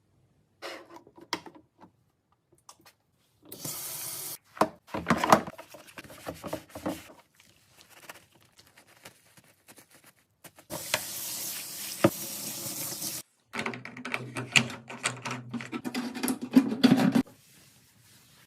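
A washing machine being cleaned: knocks and clatter of parts being handled, broken by two spells of steady water hiss, the longer one lasting a couple of seconds midway.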